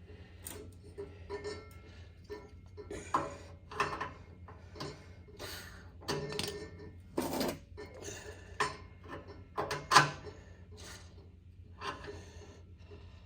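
Irregular metal clanks and knocks from tools and caster hardware being handled while casters are bolted onto a belt sander's feet, a dozen or so separate strikes with the loudest about ten seconds in. A steady low hum runs underneath.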